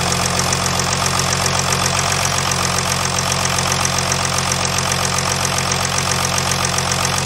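Jeep Grand Cherokee CRD's 3.0-litre V6 turbodiesel idling steadily at about 900 rpm, shortly after a cool-weather start.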